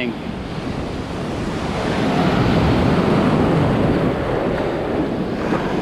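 Surf breaking and washing in at the water's edge, with wind buffeting the microphone; the rush of water swells about two seconds in.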